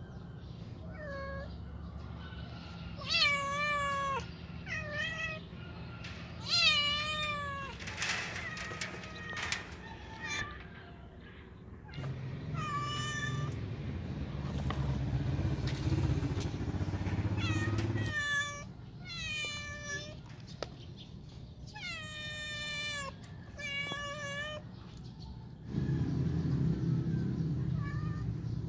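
Domestic cats meowing over and over, loud insistent meows that fall in pitch at the end, asking to be let outside. Between the calls there are stretches of louder rushing noise and a brief patch of clicks.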